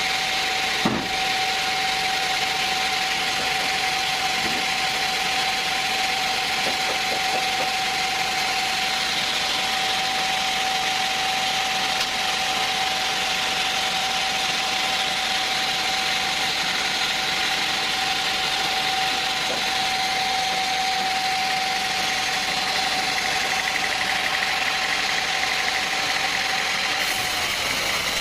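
Sawmill machinery running steadily: a continuous mechanical noise with a steady high whine that drops away near the end.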